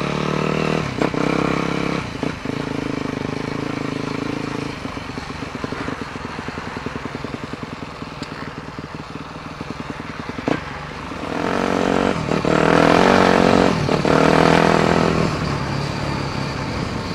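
A Yamaha WR250F dirt bike's 250 cc four-stroke single-cylinder engine running as the bike is ridden. The engine note holds steady, drops to a weaker, pulsing note midway, then grows louder and rises as the bike accelerates about two-thirds of the way through.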